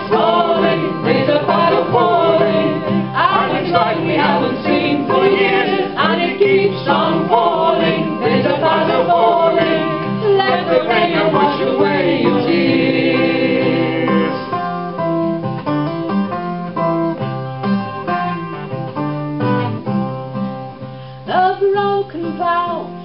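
Folk song: a voice singing, most likely the chorus, over plucked acoustic guitar. About two-thirds of the way through the voice drops out for a short instrumental passage, and the singing comes back near the end.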